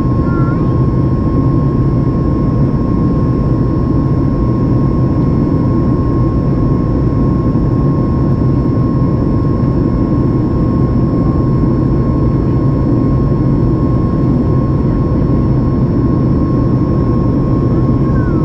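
Steady jet engine and airflow noise inside the cabin of a Boeing 737 MAX 8 in flight: a heavy, even roar with a thin, steady whine running through it from its CFM LEAP-1B engines.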